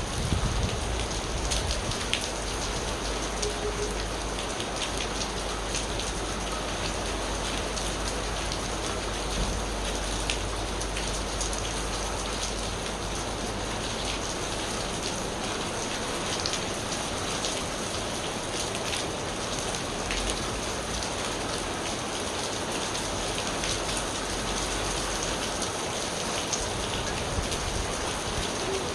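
Steady rain falling on surfaces, with many individual drops ticking and spattering. The tail of a low thunder rumble dies away at the very start.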